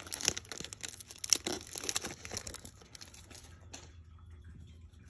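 Shiny plastic wrapper of a Panini Prizm baseball card pack crinkling as the stack of cards is slid out, with the cards rustling. It dies down to faint card handling after about three seconds, with one small click near the end.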